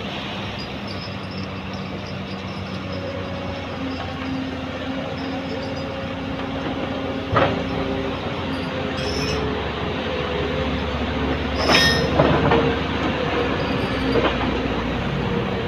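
Heavy machinery running steadily: the engines of a Cat 50 forklift stuck with a rear wheel sunk in loose gravel and of an excavator working to free it. Sharp metal clanks come about halfway through, then in a quick cluster near the end.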